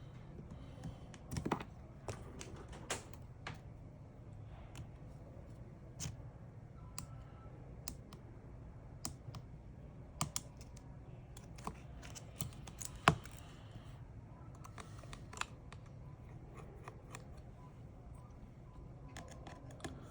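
Irregular light clicks and taps from small repair tools and phone parts being handled, over a low steady hum; the sharpest click comes about two-thirds of the way through.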